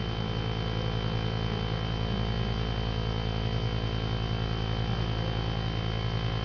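Steady low mechanical or electrical hum with a low rumble and a thin, faint high-pitched whine, unchanging throughout.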